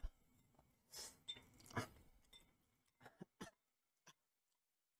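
Faint eating sounds as the last of a bowl of spicy instant noodles is finished: a short sip or slurp from the tipped bowl about a second in, then a few light clicks and clinks of a fork against the bowl, fading to near silence.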